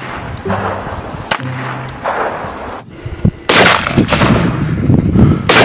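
Gunfire sound effects: a few separate shots in the first two seconds, then loud rapid fire like an automatic weapon from about three and a half seconds in.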